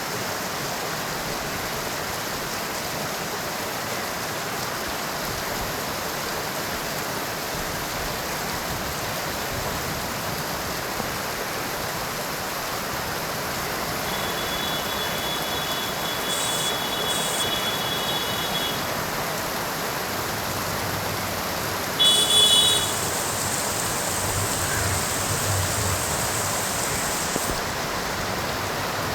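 Heavy monsoon rain falling steadily in a constant hiss. Past the middle, a few thin high tones sound, and about three-quarters through there is a short louder burst with high tones in it.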